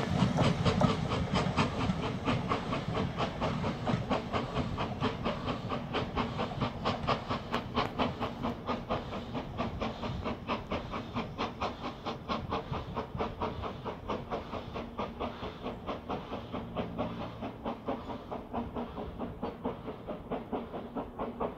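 BR Standard Class 4MT 4-6-0 No. 75078 working hard, its exhaust beating at about three chuffs a second. The rumble of the coaches' wheels is loud at first and dies away, and the whole sound fades slowly as the train draws off.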